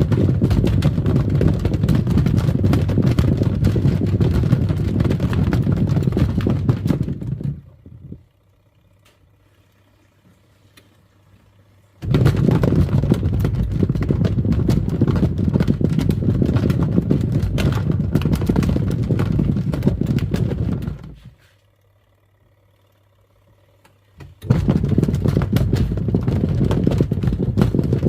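Twin-tub washing machine's wash tub churning water. It runs for about eight seconds, stops for about four, runs again for about nine, stops for about three, and starts once more, in the stop-and-reverse rhythm of the wash cycle. A faint low hum is left during the pauses.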